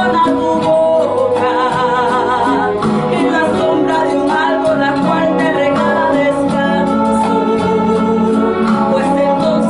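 A woman singing a gospel praise song over backing music, with vibrato on a held note about two seconds in.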